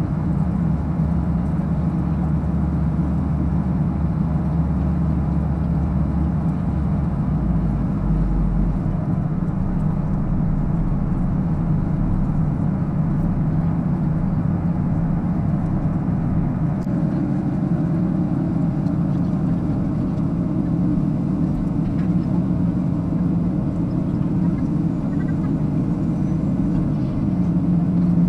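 Steady in-flight cabin noise of a Boeing 737-800: the low, even roar of its CFM56-7B turbofan engines and the airflow over the fuselage. The deepest rumble shifts slightly about eight seconds in.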